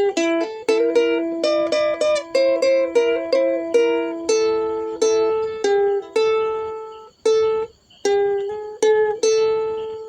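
Ukulele played fingerstyle: a plucked melody of single notes over held lower notes, each note dying away. About seven seconds in it stops briefly for half a second before the picking resumes.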